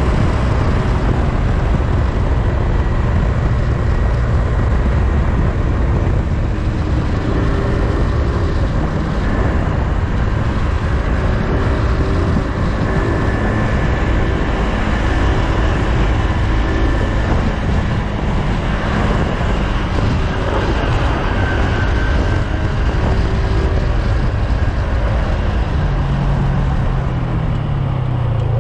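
PGO Tigra 150 scooter's single-cylinder engine running at riding speed, mixed with heavy wind rush on the rider's camera microphone. Near the end the engine note falls.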